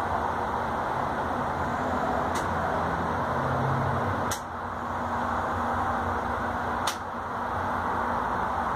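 Steady rushing noise with a faint low hum, broken by three short sharp clicks as the steering column's top bearing mount, switch and collar are fitted together by hand.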